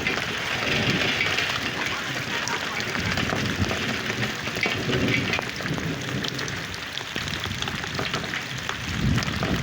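Steady rain falling, with many separate drops ticking through it.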